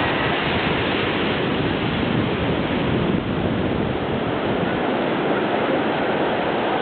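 Pacific surf breaking on a sandy beach: a steady, even rush of wave noise.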